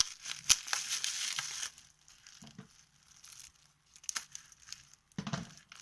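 Packaging being crinkled and rustled by hand during unboxing, with a sharp click about half a second in, then quieter scattered crackles and taps, picking up again near the end.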